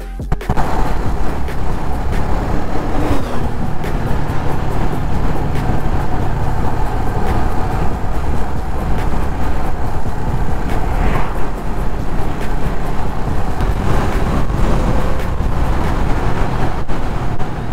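Motorcycle on the move: a steady engine drone mixed with wind noise on the microphone.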